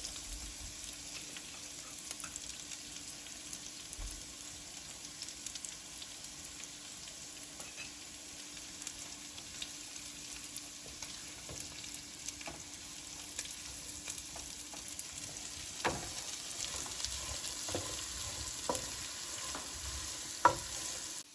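Beef pieces sizzling as they stir-fry with onions and chili in hot oil in a pan, with a spoon stirring and knocking against the pan now and then, the knocks more frequent in the last few seconds.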